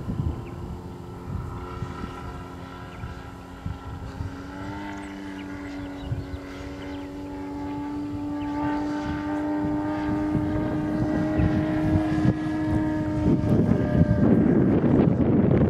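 DLE 222 four-cylinder gasoline engine on canister mufflers, driving the propeller of a 42% scale Extra 300 radio-controlled aerobatic plane in flight. Its note holds steady, steps up in pitch about four and a half seconds in, and grows louder, turning into a rushing noise near the end.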